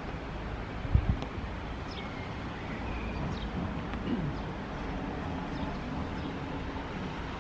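Outdoor ambience: a steady low rumble of wind on the microphone, with a few faint, short, high bird chirps and a single knock about a second in.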